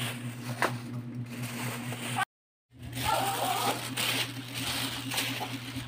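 Paper food wrappers and a plastic bag crinkling and rustling as they are handled, with a steady low hum underneath. The sound cuts out completely for about half a second midway.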